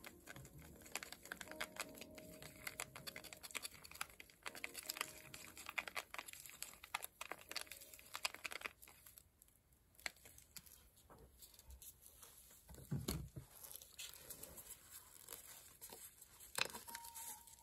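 Crinkling of a disposable plastic glove with small clicks and scrapes from a plastic cup of acrylic paint and a wooden craft stick being handled, busiest in the first half and sparser later.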